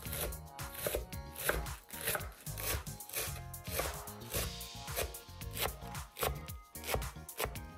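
Chef's knife chopping a bunch of fresh chives on a wooden cutting board, in steady strokes at about three a second, each one a crisp crunch through the stalks and a knock of the blade on the board.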